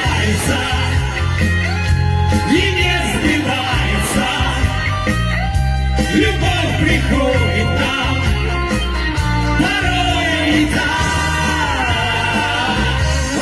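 A vocal-instrumental band playing a rock song, with a singing voice over a heavy bass line.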